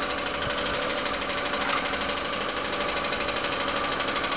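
Air compressor for a paint spray gun running steadily, with a fast, even pulsing.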